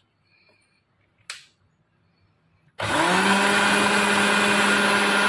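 Sparrow electric mixer grinder switched on a little over halfway in, its motor starting abruptly and running at a steady high speed as it grinds boiled tomatoes and onion into a paste. Before it starts, a single sharp click.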